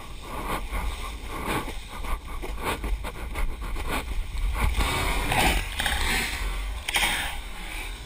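Ocean shorebreak churning and crashing, heard from a GoPro in the surf: a constant low rumble with many short splashes and knocks of water against the camera.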